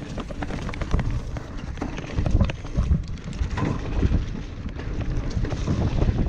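Ragley Blue Pig hardtail mountain bike ridden down a dirt trail: tyres rumbling over the ground, with frequent clicks and rattles from the bike over the rough surface.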